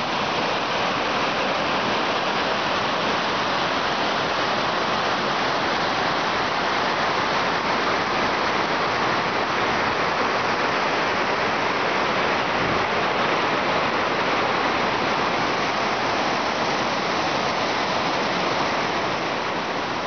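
Mountain waterfall and its cascade over rocks: a steady, dense rush of falling and tumbling water.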